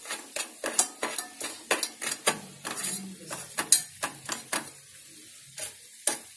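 A metal spoon scraping and clinking against a metal pot while stirring bubbling sugar syrup as it cooks toward caramel, over a faint sizzle from the syrup. The strokes come quickly, about three a second, then thin out to a few over the last two seconds.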